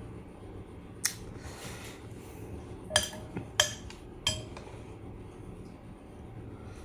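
Tableware clinking: four sharp clinks spread over a few seconds, three of them ringing briefly like metal on a dish.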